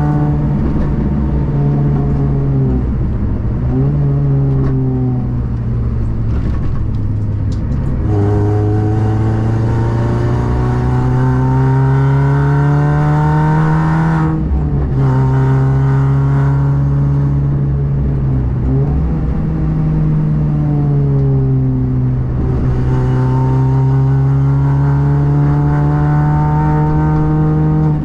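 A car engine driven hard on a race circuit. Its note climbs steadily under acceleration, drops sharply about halfway through, then rises and falls again several times as the car speeds up and slows.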